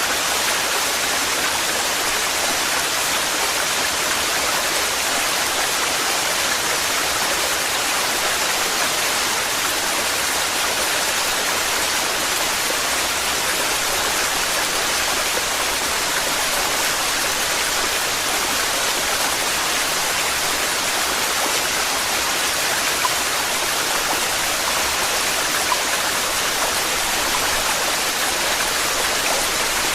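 Waterfall: a heavy, steady rush of falling water, unchanging throughout.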